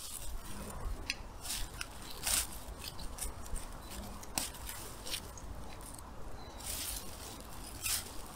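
Weeds and stems being pulled and snapped by gloved hands in grass: irregular crisp snaps, crackles and rustles.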